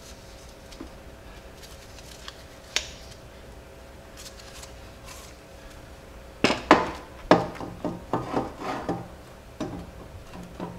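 Cast aluminum intake manifold of a Jeep 4.0L straight-six being set down onto the cylinder head and worked over its locating studs. It is quiet at first with a single click, then from about six seconds in comes a string of sharp metal clunks and knocks.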